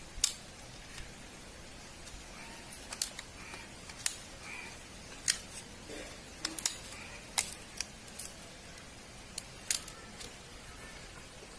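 Knife blade prying apart the two bonded plastic layers of a DVD softened in hot water: scattered sharp clicks and snaps of the plastic, about fifteen at irregular intervals.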